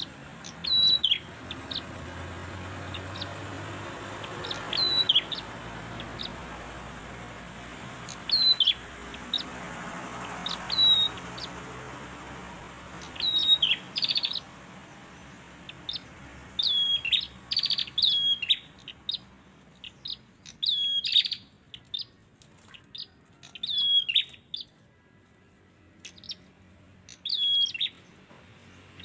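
Prenjak (prinia) birds calling: short, sharp, high chirps that drop in pitch, given in small groups at irregular intervals and coming more often in the second half. A low background rumble fades out about halfway through.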